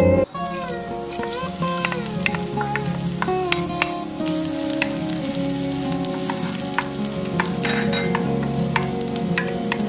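Hot olive oil sizzling in a nonstick pan, a little louder from about four seconds in as minced garlic goes in. A wooden spoon makes short taps and scrapes against the pan throughout.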